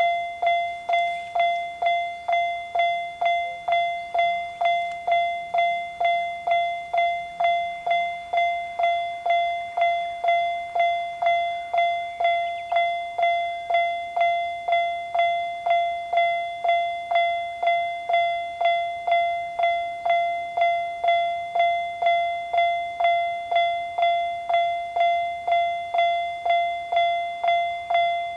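Japanese level-crossing warning bell ringing its 'kan-kan' alarm: an even run of clear, ringing strikes, a little under two a second, each fading before the next. It signals that a train is approaching the crossing.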